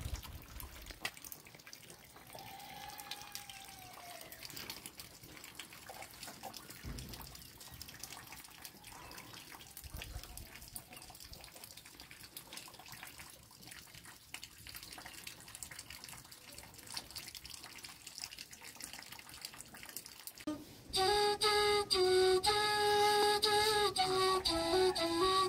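Faint dripping and trickling water. Near the end an end-blown flute starts playing, much louder, with long held notes that shift in pitch.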